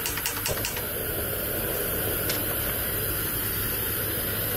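Portable gas stove burner hissing steadily under a pot of stew, with a short run of light clicks in the first second.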